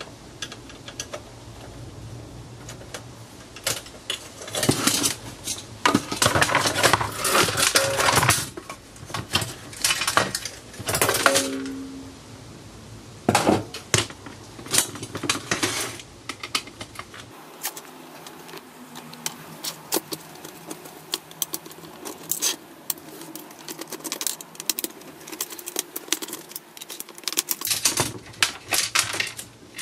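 Hand-screwdriver teardown of a Toshiba HD-S25 receiver: screws being turned out, and screws and sheet-metal parts clinking and clattering on a wooden workbench. There is a busy run of clatter in the first half, then lighter, scattered clicks and clinks.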